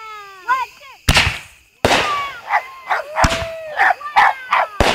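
Fireworks going off with several sharp bangs, the first about a second in, while a dog barks and yelps repeatedly between them.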